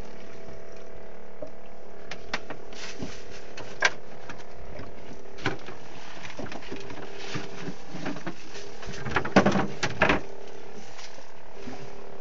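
Boat motor running steadily, with scattered clicks and a short cluster of louder knocks and clatter about nine to ten seconds in.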